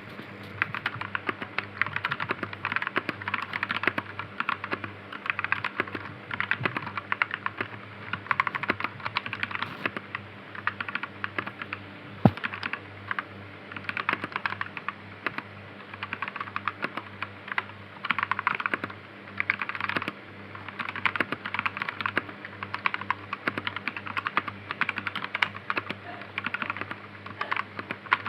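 Typing on a K550 mechanical keyboard with red linear switches: fast runs of key clacks in bursts with short pauses between them, and one sharper click about halfway through.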